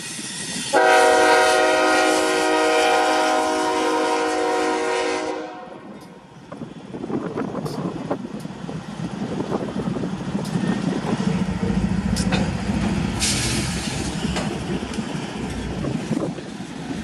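Freight locomotive's multi-chime air horn sounding one long blast, starting about a second in and cutting off after about five seconds. Then the train rolls past with a low rumble and wheels clicking over the rail joints.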